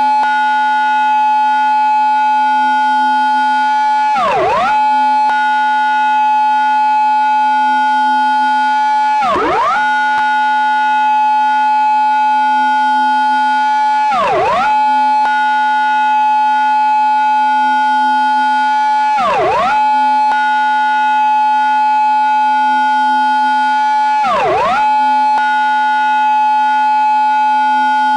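Japanese police car siren in its intersection-entry mode: a loud held high tone that drops sharply and sweeps straight back up about every five seconds, five times.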